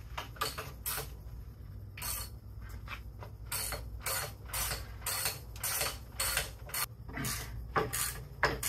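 Hand ratchet wrench clicking in repeated short strokes, about three a second once it gets going, as the 21 mm bolts holding the unit bearing on a Dana 60 Super Duty front axle are turned out.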